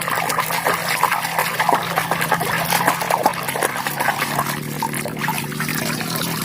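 Water splashing and trickling with a dense wet crackle as a toy is washed, over a steady low hum.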